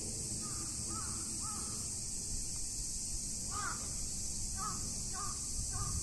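A bird calling repeatedly with short, harsh calls: three faint calls in the first couple of seconds, then a louder call and a run of calls spaced about half a second to a second apart near the end.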